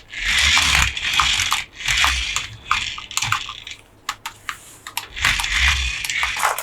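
Toy packaging being handled and opened by hand: rustling and crinkling in repeated bursts, with scattered sharp clicks and taps.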